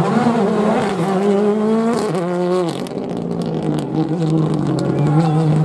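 Ford Fiesta rally car's turbocharged four-cylinder engine at full throttle as the car passes, its pitch rising and dropping in steps through the gear changes. A run of sharp crackles sounds about halfway through, and the engine climbs in pitch again near the end.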